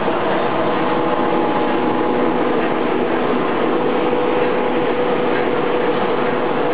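Steady mechanical running noise of a PVC wire-coating extrusion line, its electric drive motor and gearbox turning the extruder, with a constant hum.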